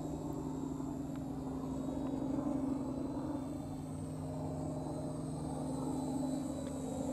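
Electric motor and propeller of a Flyzone ultra-micro Fokker D.VII RC biplane droning steadily in flight, with a low rumble underneath.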